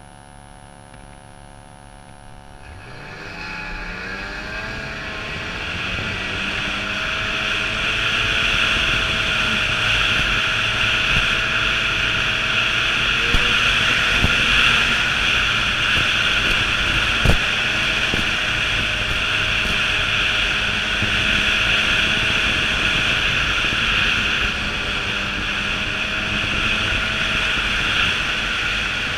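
Ski-Doo 800 snowmobile's two-stroke engine running under way. It is quieter for the first few seconds, grows louder as it picks up speed, then holds steady. A couple of sharp knocks come about halfway through.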